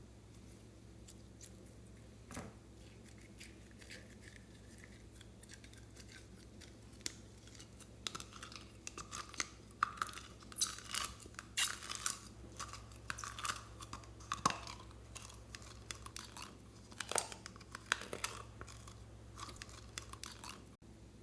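Slime being squished and stretched by hand: sticky crackles and small pops. They are sparse at first and come thick and fast from about eight seconds in, over a faint steady hum.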